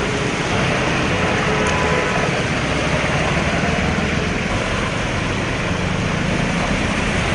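Cars driving slowly through a flooded street in heavy rain: engines running under a steady hiss of water and rain.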